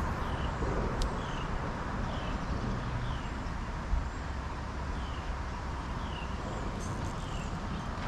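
Steady outdoor hiss and low rumble, with a short, high, falling chirp repeating about once a second, like a bird calling.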